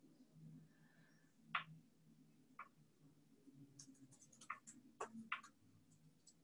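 Near silence with a faint low hum and scattered faint clicks and taps from rubber massage balls being rolled under the forearm on a desk top, a quick run of them about four to five seconds in.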